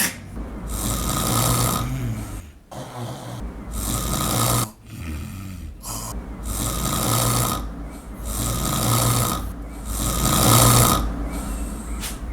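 A person snoring loudly: about five long snores, each lasting a second or two, with short pauses between them.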